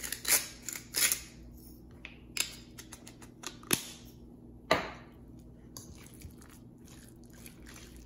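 A metal spoon clinking and scraping against a stainless steel mixing bowl as a thick chicken, avocado and mayonnaise filling is stirred. There are several sharp knocks in the first five seconds, the loudest near the middle, then softer scraping and mixing.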